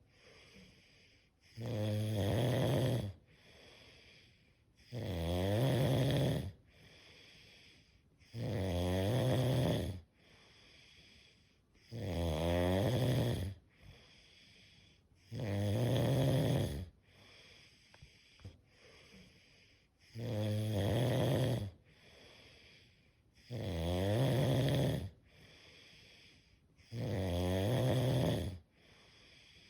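Someone asleep, snoring in a slow, even rhythm. A loud, low snore comes about every three and a half seconds, eight in all, with a much softer breath between them.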